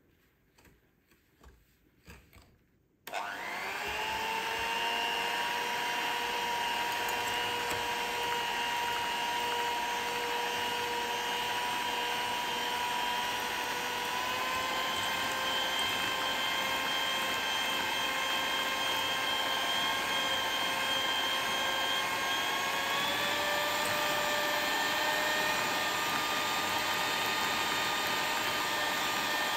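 Electric kitchen mixer switched on about three seconds in, spinning up to a steady whine and running continuously. Its pitch steps up twice as the speed setting is raised.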